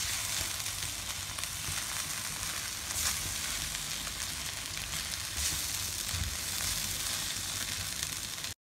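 Shredded cabbage, bell pepper and chicken sizzling steadily in a wok as a spatula tosses them, with a few sharper strokes of the spatula against the pan. The sound cuts off suddenly just before the end.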